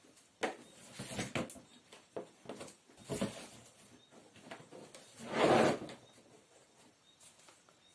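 Handling noise close to the microphone: a few short knocks and rubs, then a louder rustle about five and a half seconds in, as a person moves right against the recording camera.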